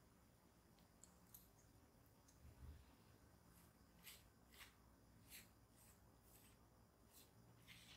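Faint, soft strokes of a silicone pastry brush spreading melted butter and condensed-milk glaze over the crust of a baked bread loaf, about six short swishes in the second half. Before that, a few faint light ticks of the brush against the ceramic measuring cup.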